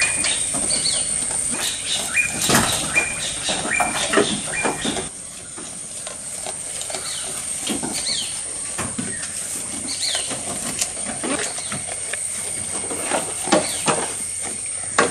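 Goats eating fresh-cut green fodder: a run of crisp bites, tearing and crunching of leafy stems as they chew, with the grass pile rustling. Short high chirps come and go over a steady high hiss.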